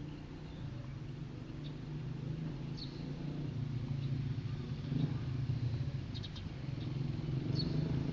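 Steady low hum that grows slightly louder, with a few faint, very short high chirps, a quick cluster of them about six seconds in.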